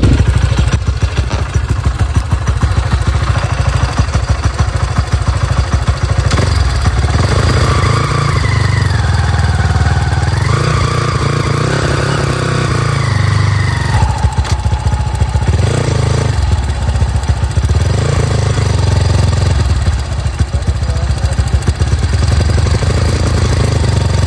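Bored-up Honda CRF single-cylinder motorcycle engine running steadily. Between about eight and fourteen seconds in, a whine rises and falls in pitch. The engine has a droning hum that the owner puts down to a worn primary gear in the clutch housing, with a gap between the primary and secondary gear teeth.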